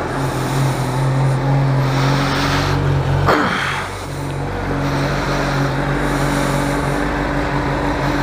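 Honda CBR600RR's inline-four engine running steadily at idle just after being started, a steady hum that dips briefly about three and a half seconds in.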